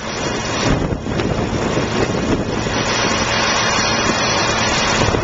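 Strong wind buffeting the microphone in a blizzard, a steady loud rushing roar, with a faint steady hum underneath.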